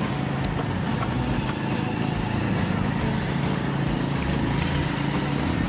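A small engine running steadily, with a low, even hum.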